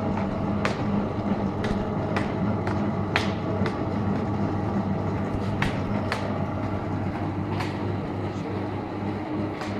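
Automatic book-labelling machine running: a steady motor hum with sharp, irregular clicks every half second to a second and a half.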